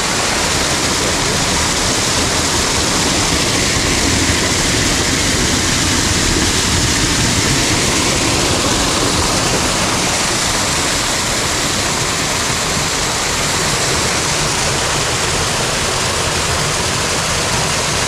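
Partly frozen mountain stream running over rocks and ice, a steady, even rush of water.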